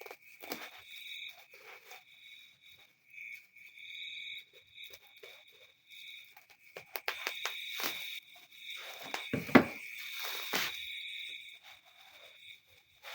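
High, steady insect chirring in repeated trills, with rustling, clicks and knocks from handling the boxed effects unit. A single sharp knock about two-thirds of the way through is the loudest sound.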